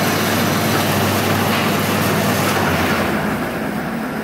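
1M61P metal lathe running with its three-phase induction motor fed from 220 V single-phase through run and start capacitors: a steady mechanical hum and gear noise as the chuck spins. The sound weakens and fades from about three seconds in.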